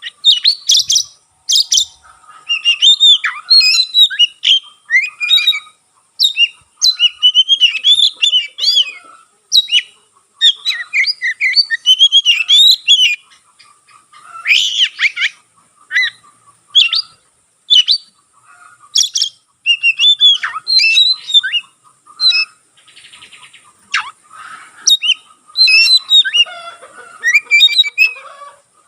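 Oriental magpie-robin in full song: loud, fast phrases of varied whistles and chirps, broken by short pauses.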